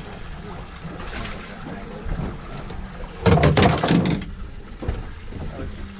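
Wind and water noise on an open boat at sea while a fish is reeled in. A loud, rough burst of noise about three seconds in lasts about a second.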